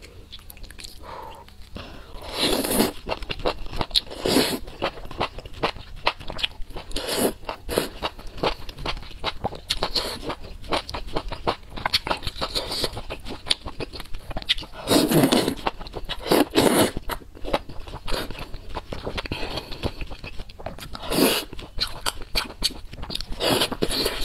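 Close-miked eating: wet chewing and mouth sounds of noodles and seafood from a spicy soup, with frequent small clicks and several louder slurps or bites.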